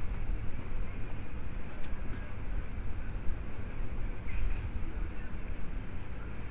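Outdoor ambience of a large open plaza at night: a steady low rumble with a faint murmur of distant voices and a few light ticks.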